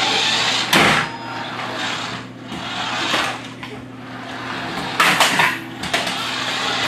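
Small remote-control toy car's electric motor whirring unevenly as it drives across a wooden floor, with a sharp knock about a second in and a few more knocks around five seconds in.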